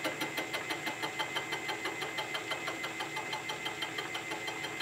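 Knee mill running at its lowest head speed with a rotating boring bar cutting a journal under power quill feed: a steady machine whine with a rapid, even pulsing of about six or seven beats a second.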